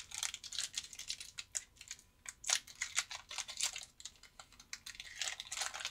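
Foil wrapper of a 2020 Panini Mosaic football card pack crinkling and tearing open in the hands, an irregular run of sharp crackles that is loudest near the end.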